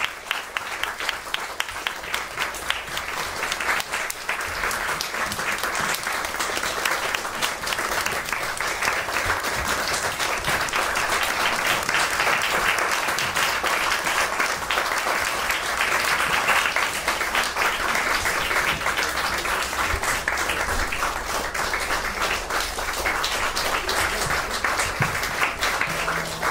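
Small audience applauding, a dense steady patter of hand-claps that swells a little midway.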